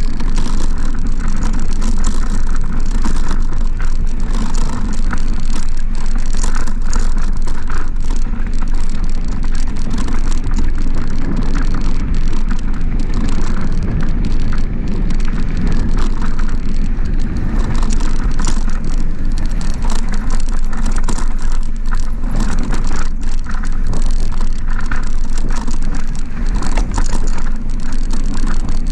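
Mountain bike rolling downhill on a dirt fire road: tyres crunching over dirt and gravel with frequent small rattles and clicks from the bike, under steady wind rumble on the camera microphone.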